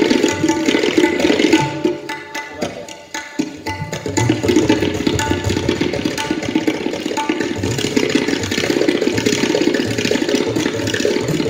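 Tabla played in a fast solo passage: rapid strokes on the right-hand drum over deep booming strokes on the left-hand bass drum. The playing drops to a soft passage about two to three seconds in, then comes back at full volume.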